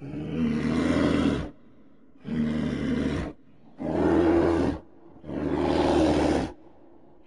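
Reconstructed roars of the short-faced bear Arctotherium angustidens, made from a human voice digitally processed with modern mammal sounds: four deep roars of about a second each with short pauses between them.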